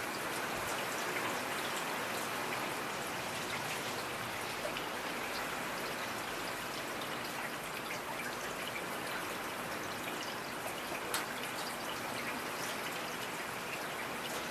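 Steady rain falling, with many small drops pattering on a surface. One louder drop lands near the end.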